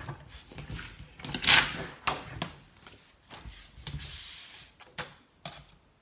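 Cardstock being handled and pressed onto a plastic cutting mat: a loud paper rustle about a second and a half in, a few sharp taps and clicks, and a brief hiss of paper sliding around four seconds in.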